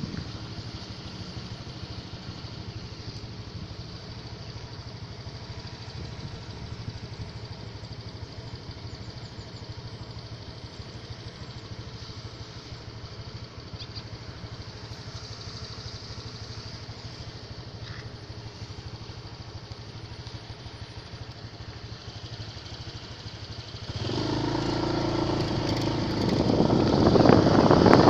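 Motorcycle engine running steadily with a low hum. About 24 seconds in it gets much louder, with wind rushing over the microphone that grows toward the end.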